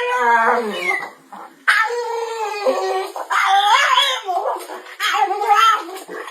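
A dog whining and howling in long, wavering calls, about four in a row with short breaks between them.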